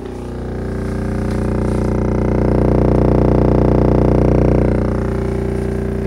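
Homemade subwoofer driven by a car monoblock amplifier playing a 30 Hz test tone: a deep, steady hum with a buzzy edge of many overtones. It swells over the first couple of seconds and eases back about five seconds in.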